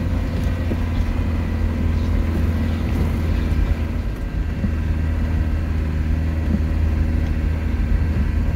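Camper van's engine running steadily with a deep low hum, heard from inside the cab while driving slowly along a muddy dirt track.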